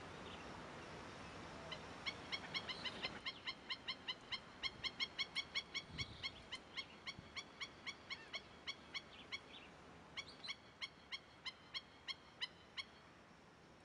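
Black-necked stilts calling faintly: a long run of short, high call notes, about three to four a second, spacing out and stopping about a second before the end.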